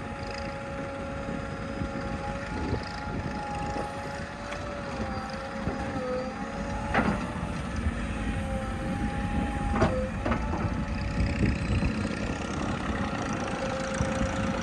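JCB 3DX backhoe loader's diesel engine running under work, with a steady whine over the low rumble and sharp knocks about halfway through and again a few seconds later.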